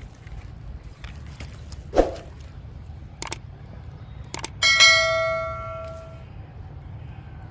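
A sharp metallic strike that rings like a small bell and dies away over about a second and a half, after a few light clicks, over a steady low hum.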